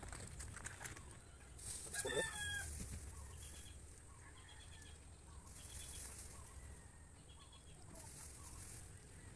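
Chickens clucking in short repeated calls, with one louder pitched call about two seconds in.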